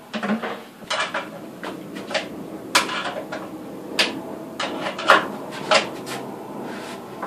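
Sheet-metal parts of a dust collector knocking and clicking as they are handled and fitted together: a string of irregular sharp clicks and clanks, some ringing briefly.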